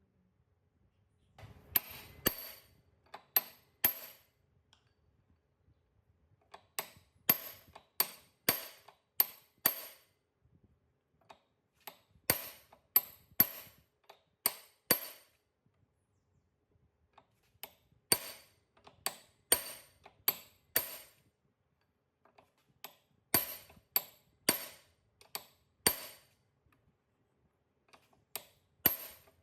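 Hammer blows on metal, in groups of four to six strikes about half a second apart with short pauses between groups. Each strike rings with a clear metallic tone.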